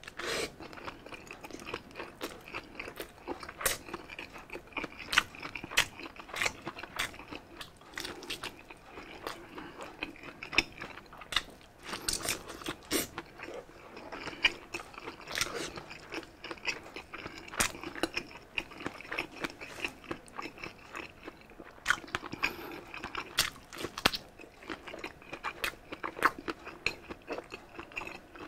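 Close-miked eating: biting into and chewing grilled sausage, with a dense run of sharp, wet mouth clicks several times a second.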